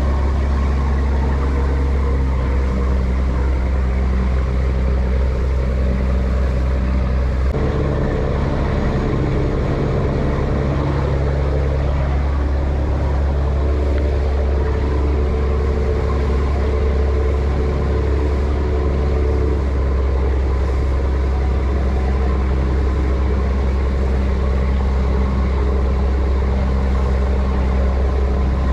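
Fishing boat's engine running steadily under way, a loud low drone over a haze of wind and water noise; its tone shifts slightly about seven seconds in.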